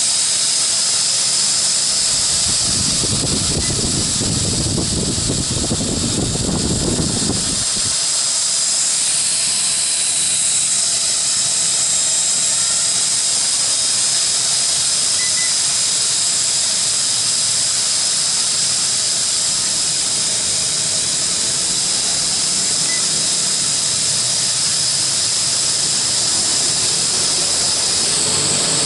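L6036 quadcopter's electric motors and propellers running steadily as it hovers, a high whine of several held tones over a hiss. A low rushing noise joins in from about three to seven seconds in.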